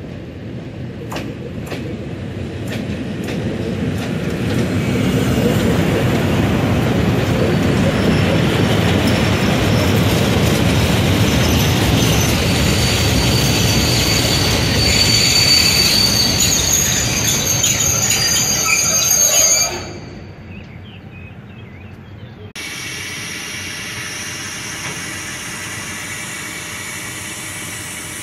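Freight train passing close by: a rumble of wheels on rails builds up, with a few sharp clicks over rail joints, then a long line of open freight wagons rolls past with high-pitched wheel squeal. About two-thirds of the way through, the sound cuts off abruptly, then comes back as a quieter, steady rolling of the wagons.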